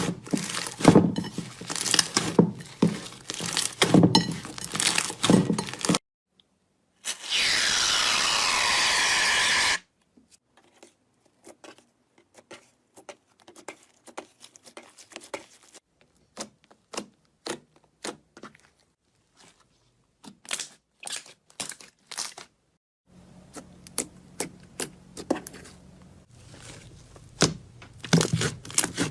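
Slime being squeezed and poked by hand, making crackling and popping clicks that come densely at first, then sparse, then dense again. About seven seconds in there is a loud, steady hiss lasting a couple of seconds.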